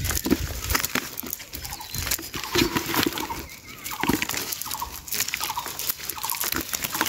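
Small live fish being picked by hand from a wet net and dropped into a plastic tub. The fish flap and patter against each other and the tub, amid many crisp clicks and rustles from the net and dry leaves.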